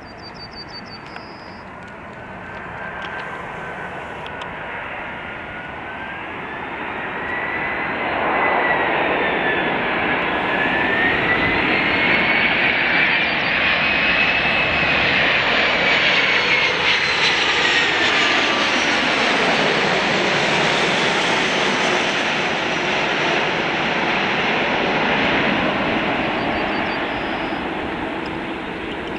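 Airbus A340-300's four CFM56 turbofan engines on landing approach, flying low overhead. A steady jet roar swells about eight seconds in, with a whining tone that climbs and then slides down in pitch as the airliner passes, and the roar eases near the end.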